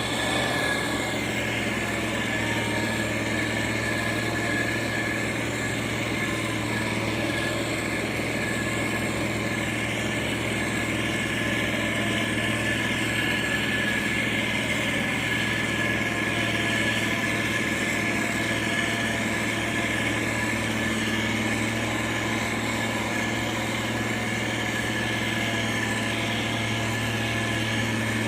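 Diesel engine of heavy road-building machinery running steadily: a constant low hum with a thin, steady high whine above it.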